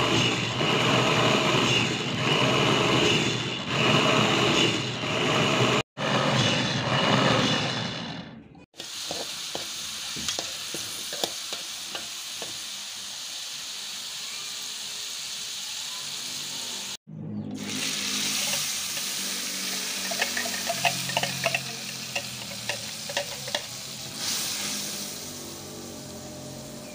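A small electric food chopper runs loudly, grinding chili paste, for about the first eight seconds. Then hot oil sizzles in a steel wok as shrimp fry, with scattered clicks and scrapes of a metal skimmer and spatula, and from about seventeen seconds in chili paste sizzles as it frys in the wok.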